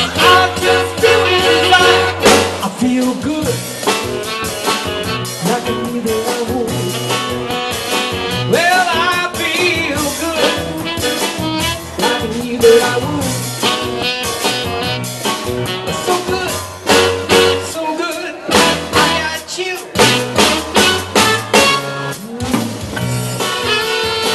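Live band music: a saxophone playing the lead over a drum kit and keyboard, with a walking low bass line and a steady beat.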